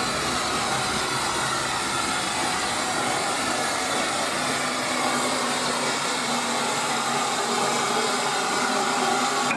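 SECR O1 class steam locomotive hissing steam steadily as it runs slowly up to a coach to couple on.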